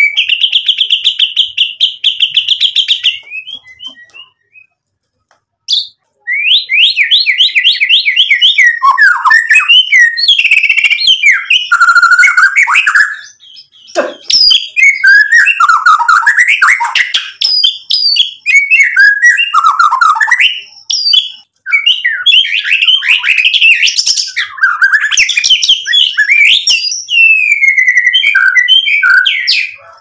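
White-rumped shama singing loudly. It opens with a fast, even trill, falls silent for about two seconds, then goes into a long run of quick, varied phrases of rising and falling notes and rapid trills.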